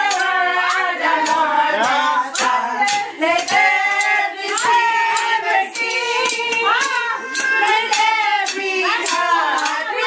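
Several women and a child singing together loudly, with sharp taps that keep time.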